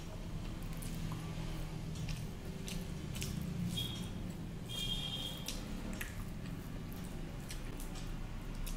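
Close-miked hand-eating: wet chewing and mouth clicks, with fingers squishing rice and curry together on a steel plate. Many small scattered clicks and ticks.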